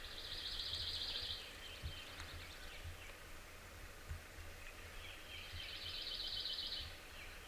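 A songbird's high, rapid trill, sung twice: a run of quick notes lasting about a second and a half at the start, then again about five seconds later, over a faint low rumble.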